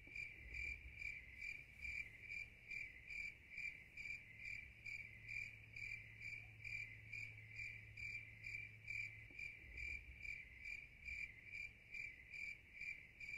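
Cricket chirping steadily, a high, quiet chirp repeated about three times a second.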